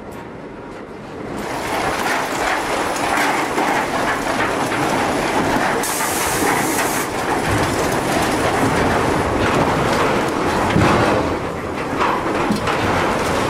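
Sawmill log-infeed conveyors running: steel chain and roller conveyors clatter and rumble steadily as logs travel along them, getting much louder about a second in. A brief high hiss comes partway through.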